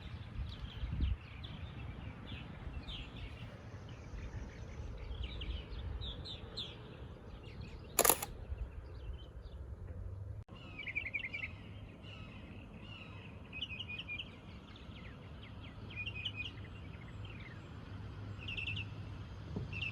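Small birds chirping and calling over a low rumble of wind on the microphone, with one sharp click about eight seconds in.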